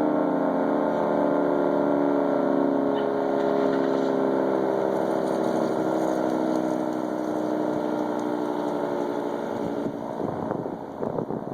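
24-horn tornado warning siren sounding a steady multi-note tone that sags slightly in pitch, then drops off about ten seconds in as wind gusts hit the microphone.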